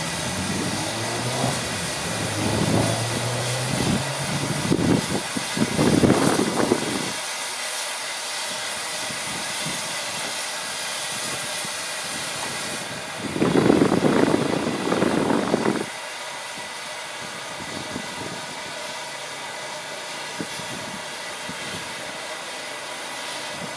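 Steam hissing steadily from a standing 1907 SLM E 3/3 steam tank locomotive while it is readied for service, with two louder rushing bursts, about six seconds in and again around fourteen seconds in.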